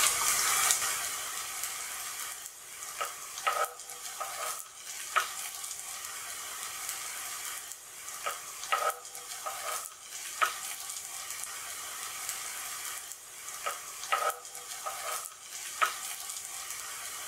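Potato nuggets shallow-frying in hot oil in a nonstick pan, a steady sizzle that is a little louder in the first second. A fork and then a steel slotted spoon turn the nuggets over, clinking against the pan now and then.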